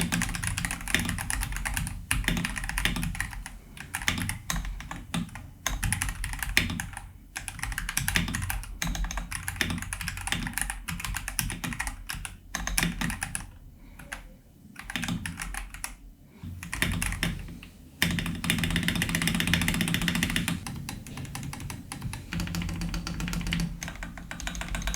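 Typing on an Akko PC75B 75% plastic mechanical keyboard with Akko CS Silver linear switches, lubed with Krytox 205G0, in its stock case: a fast run of key clacks with a few short pauses and a fuller, denser stretch near the end. It has a strong plastic sound, which the owner traces to the plate and top case touching directly.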